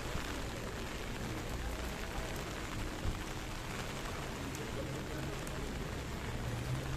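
Steady rain falling, an even hiss of drops, with a single short knock about three seconds in.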